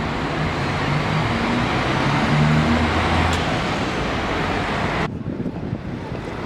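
Busy city road traffic: a dense rush of passing vehicles with the low steady hum of an engine running close by. The rushing noise drops off abruptly about five seconds in.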